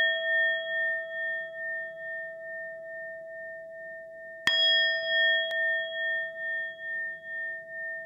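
Singing bowl ringing out after a strike with a wavering hum, then struck again about four and a half seconds in and ringing on.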